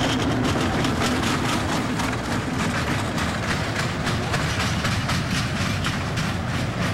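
Small kiddie roller coaster's train of cars running along its steel track: a steady rumble with a rapid, uneven clatter of wheel clicks.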